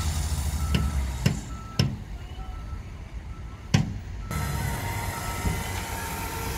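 Heavy diesel dump truck engine running with a low, steady rumble while its tipper body is raised to dump sand. Four sharp knocks come in the first four seconds, and a faint high whine that slowly falls in pitch joins in the second half.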